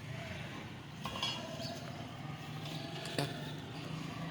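Sewage draining back into a manhole through a newly unclogged sewer line, with steady rumbling and gurgling water. Two short metallic clinks come about a second in and about three seconds in.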